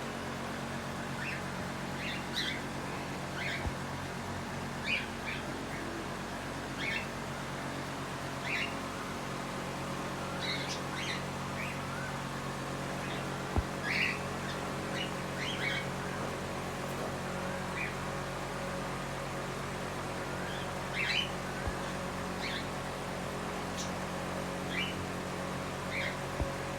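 Cockatiel giving short, separate calls every second or two, over a steady low hum.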